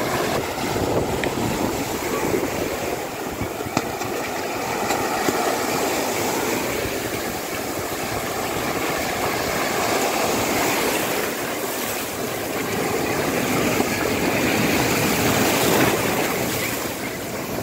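Small waves breaking and washing up a sandy shore: a steady rush of surf that swells and eases as each wave comes in.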